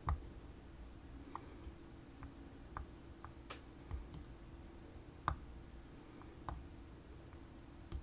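Small, sharp clicks, about a dozen at irregular intervals, from a Ruko Garant Plus disc-detainer lock being worked by hand, over a faint steady hum.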